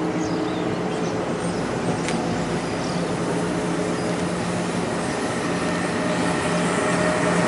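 NJ Transit double-deck commuter train moving slowly past the platform: a steady rumble of wheels on rail with a low hum, getting a little louder near the end.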